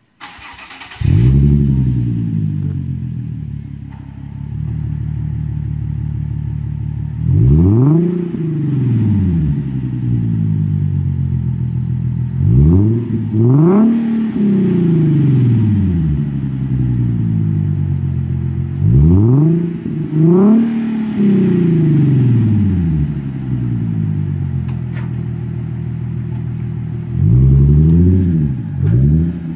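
Nissan 370Z's 3.7 L V6 through a Fast Intentions TDX cat-back exhaust with 12-inch resonators: the engine starts about a second in with a loud surge, settles to a steady idle, then takes short throttle blips, once and then in pairs, each rev rising and falling quickly back to idle.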